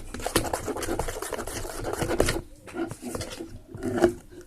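Sticky homemade glue-and-borax slime squished and pulled by hand, making a quick run of wet clicking squelches that stops about two seconds in, with a few more near the end. It is under-activated from too little borax, so it still sticks to the hands.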